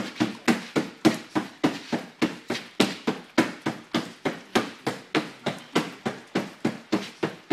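Rapid, steady hand strikes on a padded striking shield, about three to four sharp slaps a second without a break.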